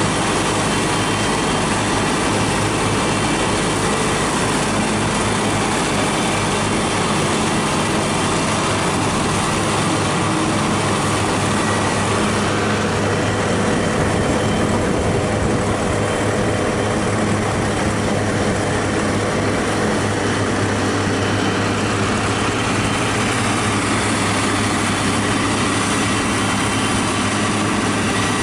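Hesston 7420 self-propelled forage harvester chopping maize, with tractor engines running alongside, a steady, loud machine noise. The higher hiss dips for several seconds in the middle.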